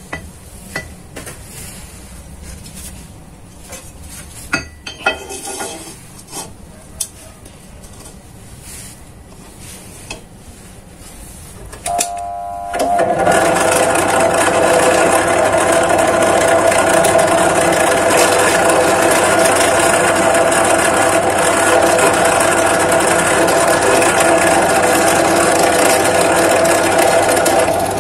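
Light metal clinks and knocks as a steel hollow bar is set in a drill-press vise, then, about twelve seconds in, a bench drill press starts up and runs steadily and loudly with a steady hum, its bit at the steel bar for drilling.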